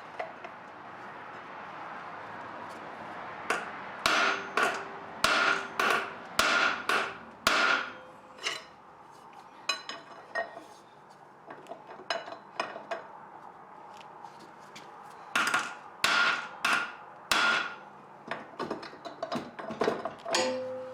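Hammer blows on the metal flywheel of a 19 hp Kohler engine, knocking it to free it from the crankshaft. The blows ring, come about two a second in two hard runs, and each run is followed by lighter taps.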